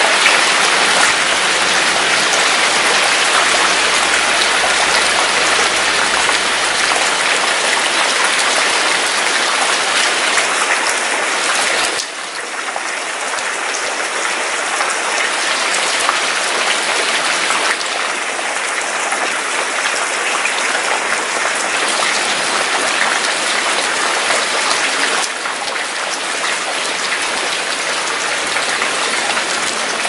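Steady heavy rain falling, a dense even hiss, dropping slightly in level twice, about twelve seconds in and near twenty-five seconds.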